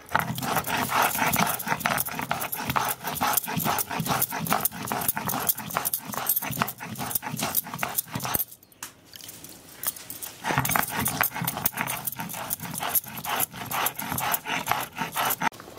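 Stone muller (batta) scraped rapidly back and forth over a sil grinding slab, grinding turmeric fine. It is a quick run of scraping strokes, broken by a pause of about two seconds a little past the middle.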